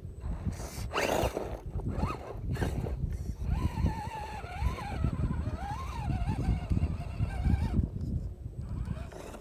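Axial Wraith Spawn RC rock racer's electric motor whining, its pitch wavering up and down for about four seconds in the middle of the clip, over a steady low rumble. A few clattering knocks come about a second in.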